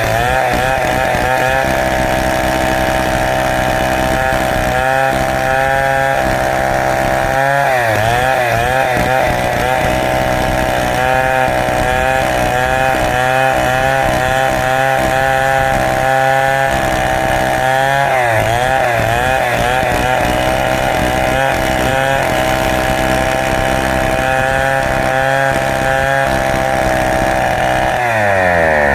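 Stihl chainsaw running under load, ripping a large teak log lengthwise. Its steady engine note wavers briefly a few times, about every ten seconds, as the cut loads and frees the engine.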